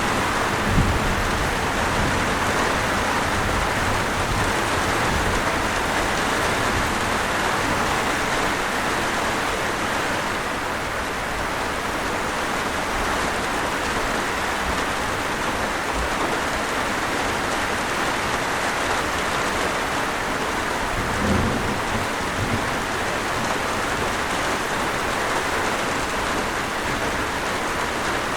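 Steady, even rain on a surface, with a few brief low rumbles near the start and again about three quarters of the way through.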